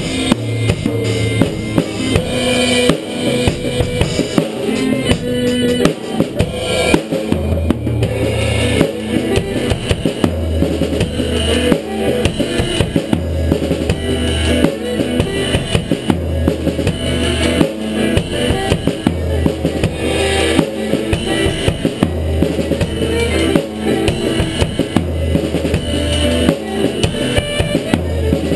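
Drum kit played in a funk groove, with snare, bass drum and cymbal strokes, over a funk play-along backing track that has no drums and a bass line of held low notes.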